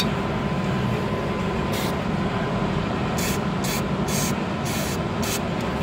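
Aerosol contact cleaner sprayed in about six short hissing bursts into the body of an electronic expansion valve to wash out dirt, starting about a second and a half in. A steady low hum runs underneath.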